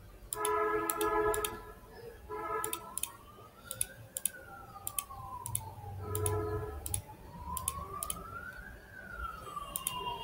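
Emergency vehicle siren wailing in the background, its pitch slowly rising and falling about every four to five seconds. Three short blasts of a steady pitched tone and scattered sharp mouse clicks sound over it.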